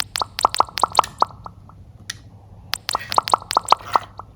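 Squeeze bottle of contact lens solution squirted into a bowl of glue mixture, giving two runs of quick, sharp pops about five a second as the drops go in.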